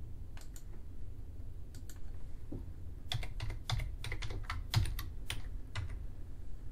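Computer keyboard keys clicking as a password is typed: two single clicks first, then a quick run of about ten keystrokes starting about three seconds in.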